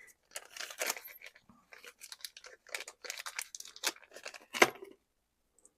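Rummaging by hand through a bin of loose hardware: a run of rattles, clicks and rustles, with one louder knock about four and a half seconds in, then it stops.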